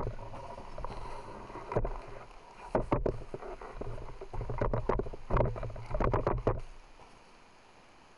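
Gusty wind buffeting the camera microphone in irregular rumbling bursts with sudden knocks. It dies away about seven seconds in, leaving a faint steady hiss.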